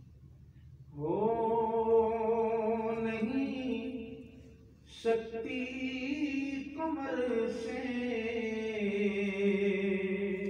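A single voice chanting a devotional recitation in long, held, melodic phrases: one phrase, a short break about halfway through, then a second phrase that runs on.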